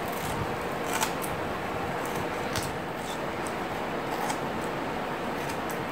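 Scissors snipping through a felt-backed Velcro strip, trimming it along the edge of a plastic holder: a series of short, separate snips over steady background noise.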